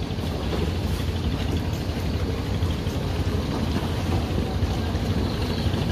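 Speedboat engine running steadily, a low drone with a haze of water and wind noise over it.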